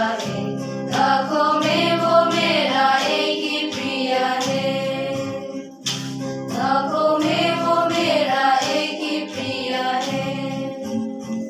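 Small church choir of young women and men singing a hymn together in sustained phrases, accompanied by an acoustic guitar. There is a short break between lines about halfway through.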